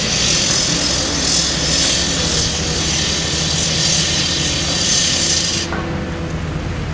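Caterpillar 319C hydraulic excavator running as it swings and reaches out its boom: a steady diesel engine hum with a pulsing high hiss over it that stops sharply about five and a half seconds in, leaving the engine running.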